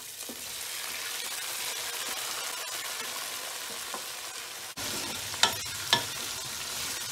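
Boiled chicken pieces sizzling as they drop into hot oil with browned onions in a pot, then being stirred with a wooden spoon. A steady frying hiss, with a few sharp knocks of the spoon against the pot in the second half.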